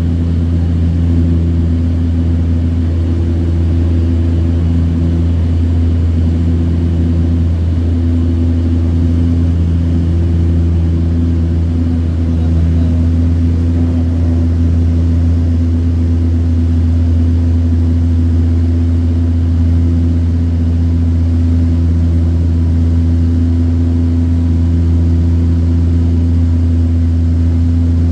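Cabin noise of a de Havilland Canada DHC-6 Twin Otter in cruise: a loud, steady drone from its two turboprop engines and propellers, with a few higher tones that swell and fade every few seconds as the propellers beat against each other.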